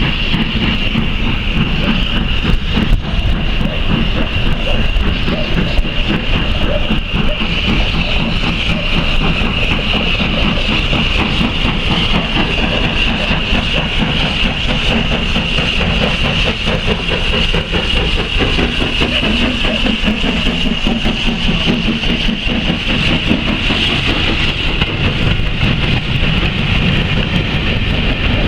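Heritage railway train running along the track: a steady, loud rumble of wheels and rails with a constant high hiss on top, unbroken throughout.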